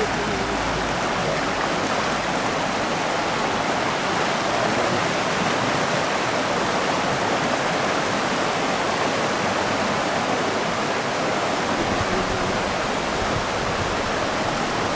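Shallow mountain river rushing over rocks and boulders: a steady, unbroken rush of whitewater.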